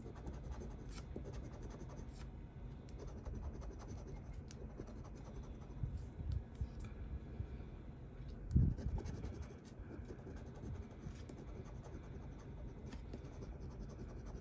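Scratch-off lottery ticket being scratched, its coating scraped off in many short, irregular strokes, with a soft low thump about eight and a half seconds in.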